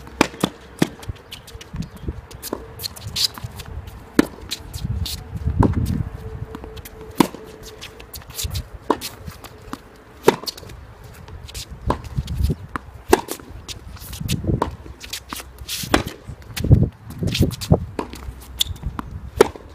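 Tennis balls being struck by rackets and bouncing on the court: sharp knocks at uneven intervals, as in a rally or hitting practice.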